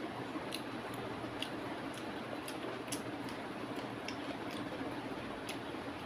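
A hand mixing rice with chicken curry on a metal plate: soft squelching with scattered small, sharp clicks, over a steady background hiss.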